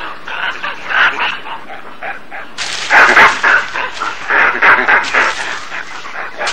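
Several rhesus macaques calling in a squabble: a rapid run of short calls, loudest around the middle. These are the vocal, ritualized threats of a dispute between macaques.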